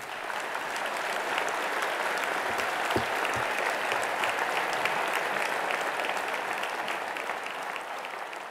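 A large theatre audience applauding at the end of a speech: a dense, even clapping that swells in the first second and fades toward the end.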